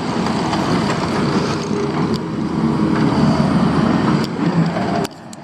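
Diesel engines of heavy construction equipment running steadily as the machines work. The sound cuts off abruptly near the end.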